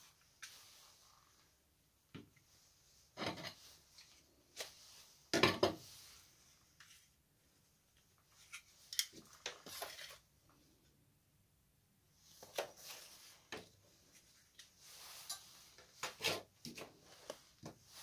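Plastic battery pack and charger of a cordless tool being handled: clicked apart, knocked and set down on a steel workbench, with soft rustling between the knocks. The loudest knock comes about five seconds in.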